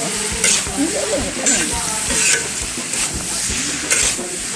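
Mee goreng noodles stir-frying in a large wok: a steady sizzle, with a metal spatula scraping against the wok four or five times as the noodles are tossed.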